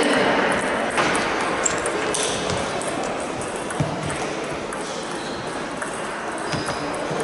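Table tennis balls knocking off bats and tables: a few scattered sharp clicks over the steady background chatter of a busy sports hall.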